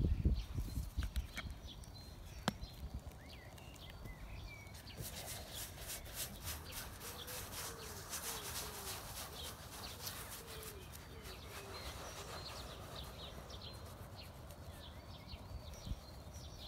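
A hand rubbing and smearing wet paint across a stretched canvas, a soft crackly scrubbing that starts about five seconds in and eases off a few seconds later. Small birds chirp faintly throughout.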